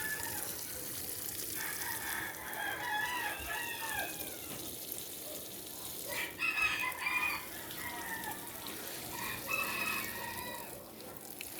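Chickens calling: a rooster's long crow, then shorter clucking calls twice more, about halfway through and near the end.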